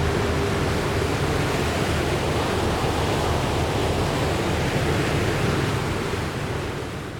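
Steady rushing of wind and sea water, as heard from a ferry at sea, fading out near the end.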